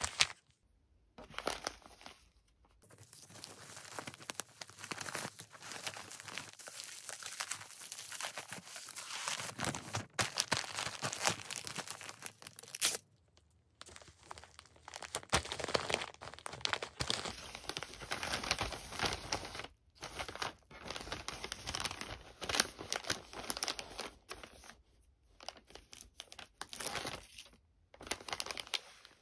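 Plastic packaging being handled: crinkling and rustling with tearing, in irregular stretches broken by a few short pauses.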